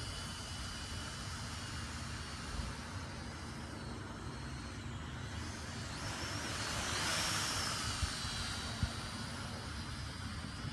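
UDI toy quadcopter's small electric motors and propellers whining in flight, the pitch of the whine drifting up and down as the motors speed up and slow, growing louder for a moment about seven seconds in.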